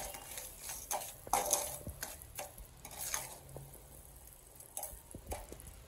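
Metal spatula stirring and scraping in a stainless steel pot of sugar melting in a little water, a string of short scrapes every half second to a second.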